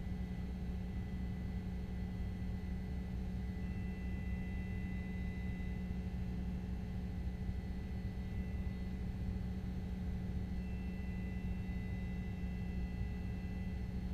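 A steady low hum with no change, and faint thin high tones over it.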